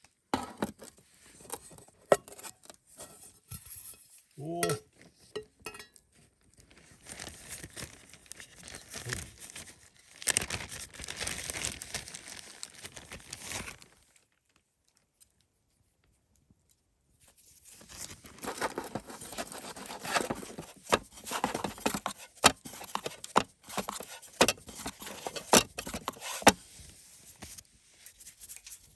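Crinkling and rustling of plastic or paper packaging being handled and torn, with scattered sharp clicks and light clinks of cookware, in two stretches broken by a few seconds of silence.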